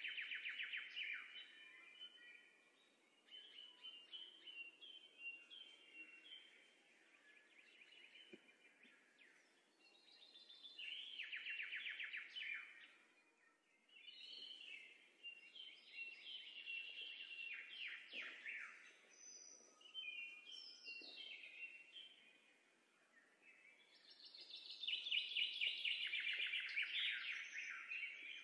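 Songbirds singing, with trilled phrases coming every few seconds over a faint hiss.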